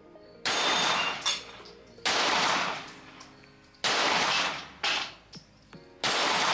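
SIG Sauer P320 pistol fired four times at a slow, deliberate pace, a second and a half to two seconds between shots. Each shot has a decaying tail, with the metallic ring of steel plate targets being hit.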